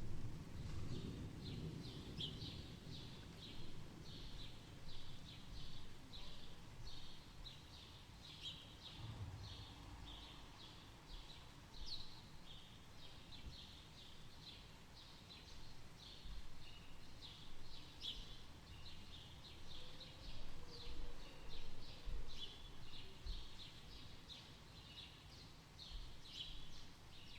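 Small bird chirping rapidly and repeatedly, two or three high chirps a second, over a low rumble that is strongest at the start and fades within the first ten seconds.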